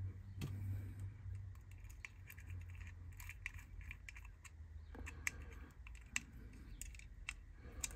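Faint scattered clicks and taps of small metal parts being handled and fitted back onto a Hornby Dublo diecast locomotive chassis, over a low steady hum.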